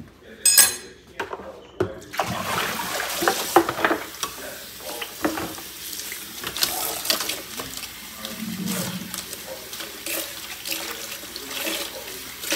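Kitchen sink tap turned on about two seconds in and running steadily, with small knocks and clatters of things handled under the water.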